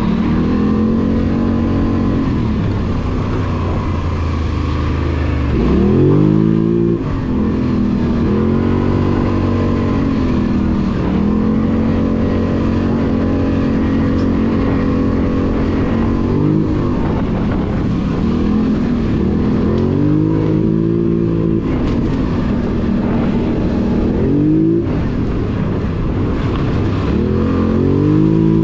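2021 Polaris Sportsman 850 ATV's twin-cylinder engine running as the quad is ridden along a trail, steady stretches broken by repeated rises and falls in revs as the throttle is worked, the biggest about six seconds in and near the end.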